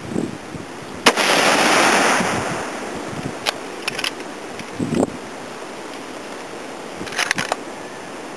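A single shot from a Ruger Model 77 .30-06 bolt-action rifle about a second in, its report rolling away for a second or so. Later come short metallic clicks of the bolt being worked, a few in the middle and a quick cluster near the end. The rifle is firing after a repair to its firing pin spring.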